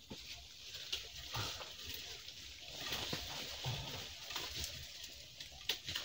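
Faint rustling of dry leaf litter and brush, with scattered snaps and soft footfalls, as a hiker scrambles up through undergrowth.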